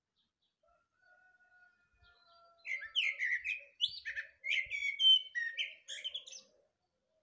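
A thrush singing: after a few faint thin notes, a loud phrase of quick, varied notes and twitters begins about three seconds in and lasts some four seconds.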